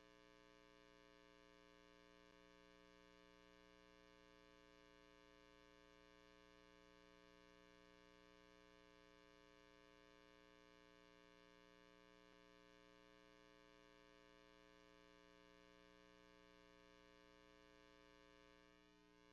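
Near silence: a faint, steady electrical hum made of many steady tones, with no sound from the dogs.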